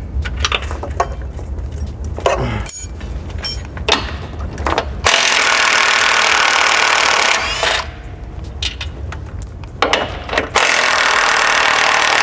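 Power tool running in two bursts of about two seconds each, about five seconds in and again near the end, with scattered clicks of hand tools and metal parts before and between them.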